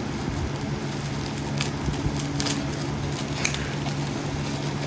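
Packaging being opened by hand, giving a few short crinkling crackles, about one and a half, two and a half and three and a half seconds in, over a steady low hum.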